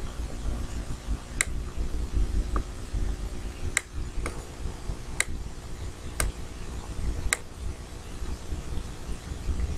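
Computer mouse button clicking, about six sharp single clicks a second or so apart, over a steady low hum.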